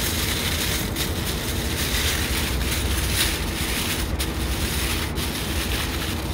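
Aluminium foil rustling and crinkling as hands fold and crimp it around a whole fish, over a steady low rumble.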